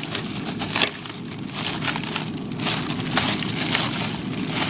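Plastic bags and frozen packages crinkling and crunching as they are shoved and squeezed into a full freezer, with irregular rustling throughout.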